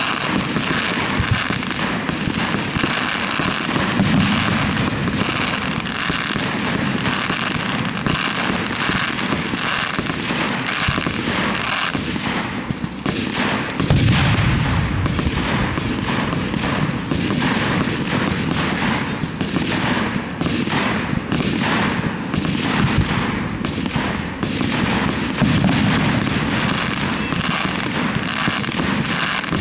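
Fireworks display: shells bursting in a continuous, dense run of crackling and popping, with a heavier boom about halfway through.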